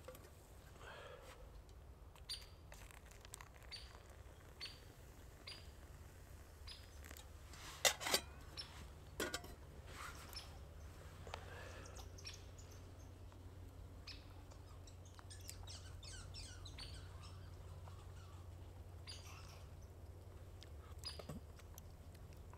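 Faint short bird chirps over a low steady rumble, with a few sharp clicks and knocks about a third of the way in.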